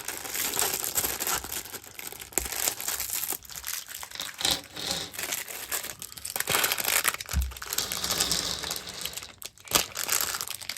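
Crinkling and rustling of plastic parts bags, with small plastic Lego Technic pieces clicking irregularly as they are handled and sorted.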